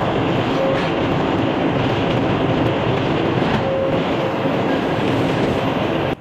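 Sawmill running and sawing through a poplar log: a steady, loud machine noise that cuts off suddenly at the end.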